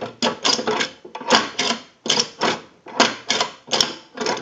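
Single-slot payphone's metal vault door being seated and locked with a key: a run of irregular metallic clicks, rattles and scrapes, two or three a second.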